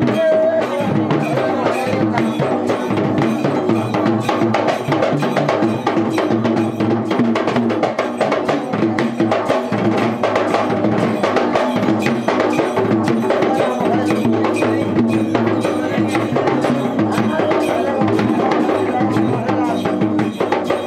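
Tovil drumming on yak bera, the laced double-headed drums of Sri Lanka's low-country exorcism rituals: a fast, unbroken rhythm of dense strokes.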